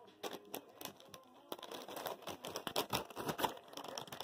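Irregular rustling and clicking of a handheld device being handled, getting busier about one and a half seconds in.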